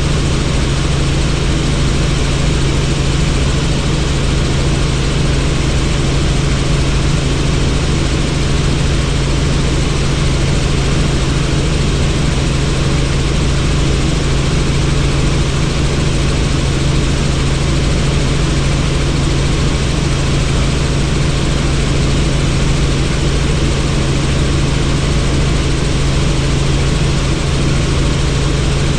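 Helicopter in flight, heard from on board: steady rotor and engine noise with a constant low hum and a rushing hiss over it, unchanging throughout.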